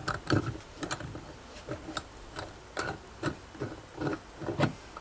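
Irregular clicks and knocks of metal fittings being handled and fitted onto an underfloor heating manifold and pump set, about ten over a few seconds.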